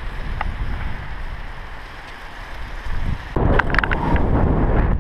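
Wind buffeting a helmet-mounted GoPro's microphone over a low rumble. A little over three seconds in it gets louder, with mountain-bike tyres rolling on gravel and a few sharp clicks and rattles from the bike.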